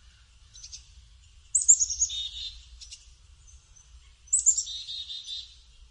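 Black-capped chickadee calling twice: each call opens with a quick run of high notes falling in pitch, then a string of lower, buzzy dee notes, the chickadee's chick-a-dee call.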